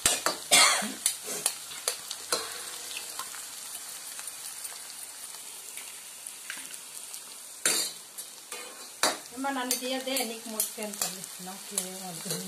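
Onions and spices frying in oil in a nonstick pan, a steady sizzle, while eggs are cracked in on top. Sharp taps and clinks against the pan come every so often, loudest near the start and twice later on.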